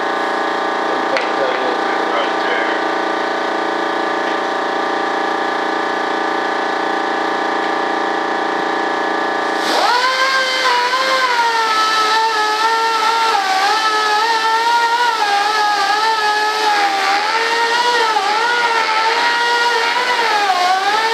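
A steady machine whine with several fixed tones, then, from about ten seconds in, a handheld rotary tool spinning a cloth buffing wheel on a fibreglass mold. Its whine dips and rises as the wheel is pressed against the part and eased off while polishing.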